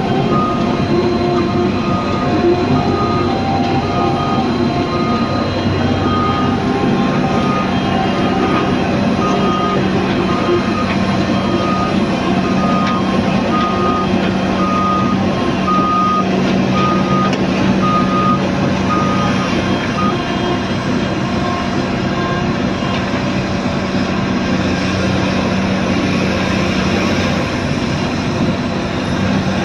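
Travel alarm of a Cat 395 excavator beeping about once a second as the machine tracks, over a steady heavy diesel engine. The beeping stops about two-thirds of the way through while the engine keeps running.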